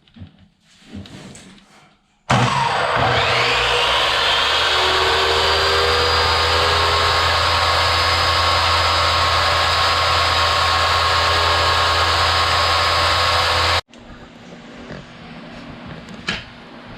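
Old chop saw's electric motor switched on, whining up to full speed within about a second and a half, then running steadily with a hiss for about eleven seconds before cutting off suddenly. It is run while its commutator is being cleaned with sandpaper.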